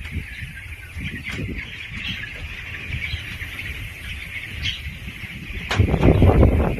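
Dense, steady cheeping of a large flock of 19-day-old broiler chickens inside a chicken house. Near the end a louder low rumbling noise comes in.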